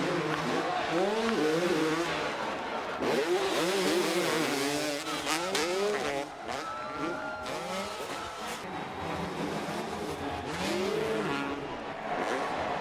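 Two two-stroke dirt bike engines revving, their pitch sweeping up and down again and again as the throttles are opened and closed over the jumps.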